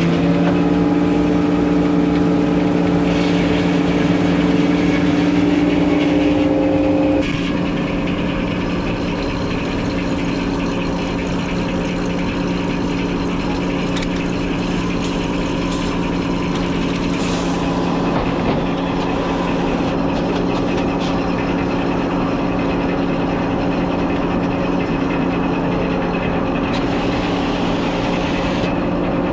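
Engine running steadily; about seven seconds in its note changes and it gets slightly quieter.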